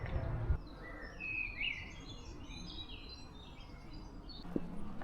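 A songbird singing a varied run of quick chirps and short trills. There is a low thump about half a second in, and footsteps start near the end.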